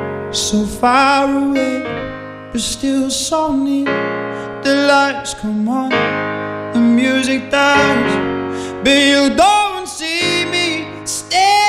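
A man singing a slow ballad live over sustained piano chords, his voice wavering with vibrato on the long held notes.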